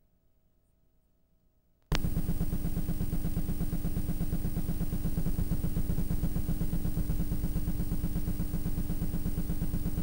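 Near silence, then about two seconds in a sudden loud static hiss with a steady hum and a fast low buzz sets in and runs on evenly: the noise of a video tape playing a blank, picture-less stretch.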